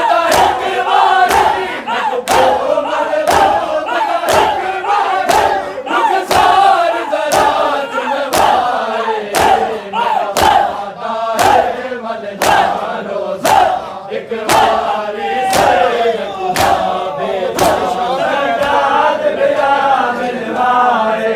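Crowd of men chanting a noha in unison while beating their chests in matam, the slaps falling together in a steady beat about once a second.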